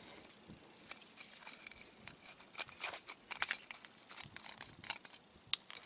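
Hands working the plastic cap of a can of Sea Foam motor treatment: a scatter of small, irregular clicks and crackles.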